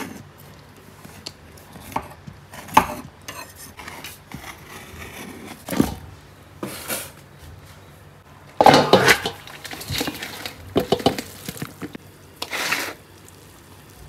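Cookware clatter: a metal spoon and a pot lid knocking and scraping against a steel pot while biryani is uncovered and mixed, in irregular clusters of clanks, the busiest a little past the middle.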